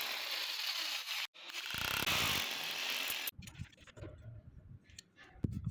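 Mechanical working noise from fitting a door handle lock into wood: a steady rasping noise that breaks off sharply about a second in, resumes, and stops about three seconds in, then scattered light clicks and knocks of the lock hardware.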